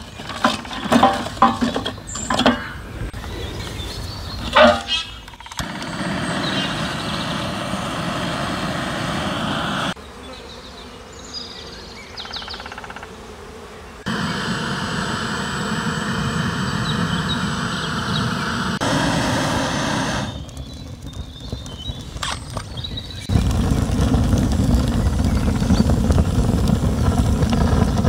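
Dry wooden sticks clattering and knocking against each other and the metal firebox as they are stacked into a wood-burning cauldron stove, a run of sharp knocks over the first five seconds. Near the end a much louder, deep, steady rushing noise takes over.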